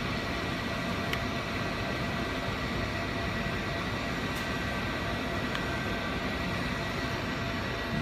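Steady room noise from a fan or air-conditioning unit, an even hiss and hum with a faint high-pitched whine held on one note. Two faint clicks sound about a second in and about four and a half seconds in.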